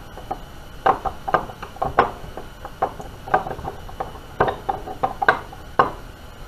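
Two-piece aluminum swimbait mold being opened by hand: irregular sharp clicks and knocks, about one or two a second, as the metal halves are worked apart.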